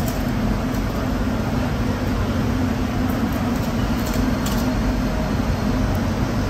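A steady low mechanical hum under an even hiss, with a few faint light clicks about three to four and a half seconds in.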